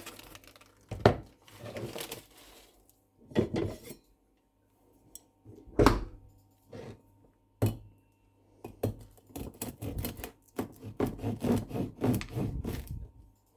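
Kitchen dishes and utensils being handled: scattered knocks and clinks, the sharpest about a second in and near six seconds, then a quicker run of small taps and clatter over the last few seconds.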